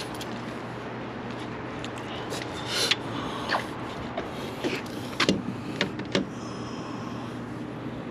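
Scattered light clicks and scrapes of small hardware being handled while a hinge's hole position is marked on the fuel-filler door, over a steady low hum.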